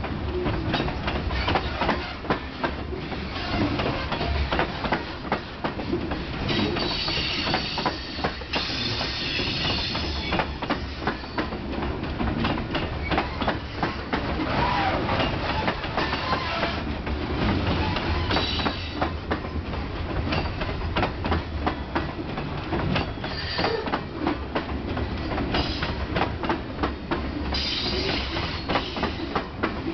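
Freight train rolling past: a steady low rumble with a dense run of clicks from wheels crossing rail joints, and brief high wheel squeals several times.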